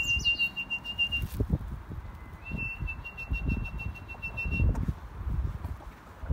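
A person whistling long, steady single high notes: one held note ending about a second in, and a second held for about two seconds from about two and a half seconds in. Low irregular bumps of footsteps on grass run underneath.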